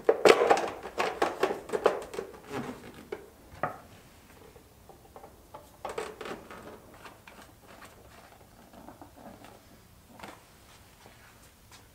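Clatter and knocks from a moped's black plastic side cover being handled and worked against the frame: a dense run of clicks and knocks in the first couple of seconds, then scattered quieter taps.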